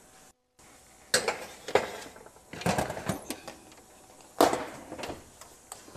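Metal muffin tin clanking against the oven's wire rack as it is slid back into the oven: a series of sharp metallic clanks and knocks, the loudest about four seconds in.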